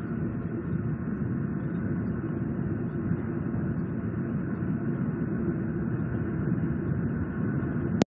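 Steady low rumbling background noise from the outdoor nest-cam microphone, with no eaglet calls heard. It cuts off suddenly at the very end.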